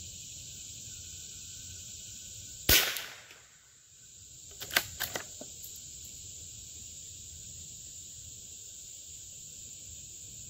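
A single shot from a Howa M1100 bolt-action .22LR rifle firing CCI standard-velocity ammunition: one sharp report nearly three seconds in. About two seconds later comes a quick run of metallic clicks as the bolt is worked to eject the case and chamber the next round. A steady high insect hiss runs underneath.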